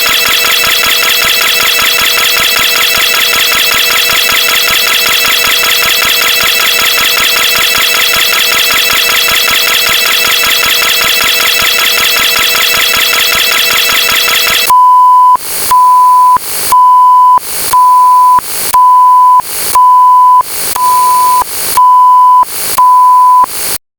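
A steady electronic buzzing tone held for about fifteen seconds, then nine loud beeps at one pitch, a little under one a second, like an alarm.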